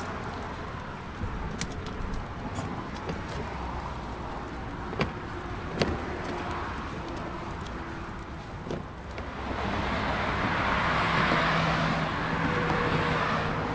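Road vehicle noise: a steady low rumble with a few scattered clicks, then a car grows louder about nine seconds in, with a low steady hum under it.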